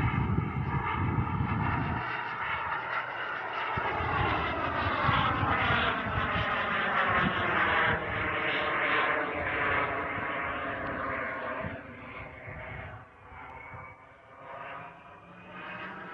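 Engine of a Harlock-RC Viper radio-controlled model jet flying overhead, its steady sound sweeping up and down in pitch as it passes. It fades over the last few seconds as the jet moves away.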